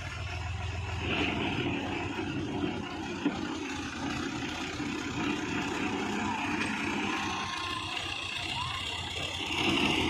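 Diesel engine of a 1994 Fiat 480 tractor running under way, growing louder about a second in and again near the end. A single sharp click about three seconds in.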